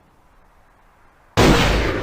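Ithaca Model 37 pump-action shotgun firing once, about a second and a third in: a sudden loud blast followed by a long fading echo.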